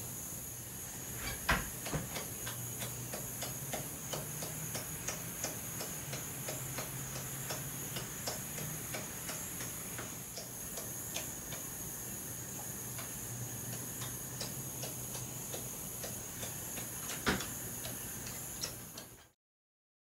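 Steady high-pitched chorus of night insects such as crickets, with scattered irregular clicks and ticks, and a sharper knock about a second and a half in and another near the end.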